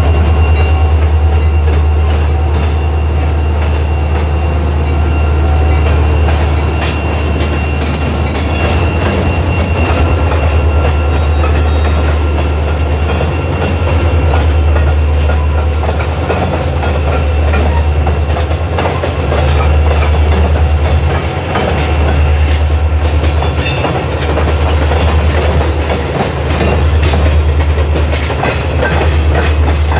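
Indiana Harbor Belt diesel-electric locomotives moving past, their engines giving a deep rumble that swells and dips every few seconds, with wheels clicking over the rails.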